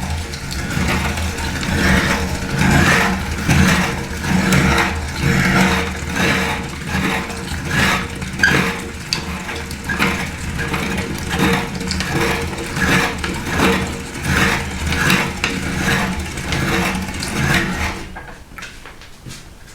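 Electric meat grinder motor running with a steady hum while food is crunched through it, the crunching swelling and fading about once a second; the motor switches off near the end.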